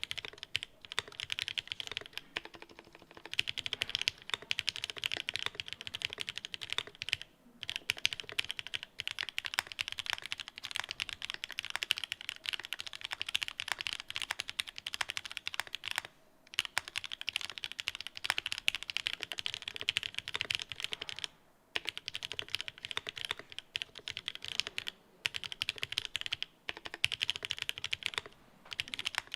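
Fast typing on a Mode Eighty mechanical keyboard with linear switches and Cherry-profile keycaps: a dense clatter of keystrokes, with short breaks about every four to eight seconds where one typing clip gives way to the next. The clips compare the board in isolated top mount and stack mount.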